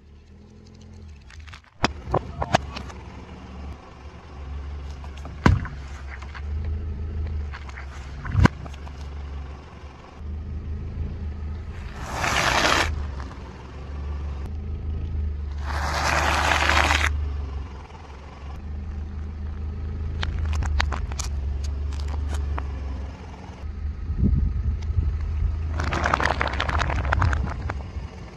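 A car rolling slowly over things on asphalt, its engine running low underneath, with several sharp pops and cracks in the first few seconds and three longer crunching, hissing bursts as objects are crushed under the tyre.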